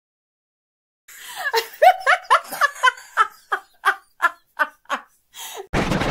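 About a second of silence, then a person laughing in a run of short "ha" bursts, about three a second, that thin out and fade. The song's music cuts back in near the end.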